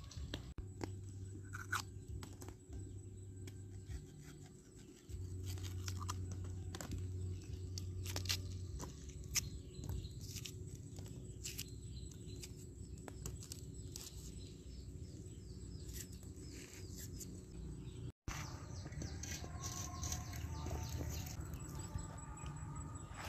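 Cleaver cutting a fresh bamboo shoot: scattered crisp cuts and knocks over a low hum.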